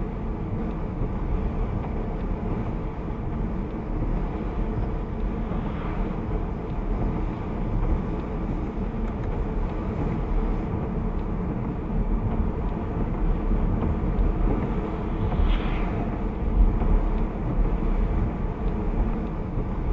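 Steady road noise inside a moving car's cabin: tyre and engine rumble, mostly low-pitched.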